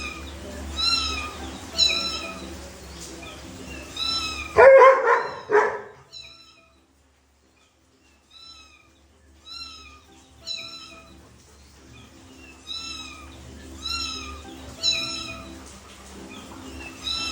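An animal's short, high-pitched cries repeating about once a second, each falling in pitch, with a louder, lower cry about five seconds in and a pause of a couple of seconds before the cries start again.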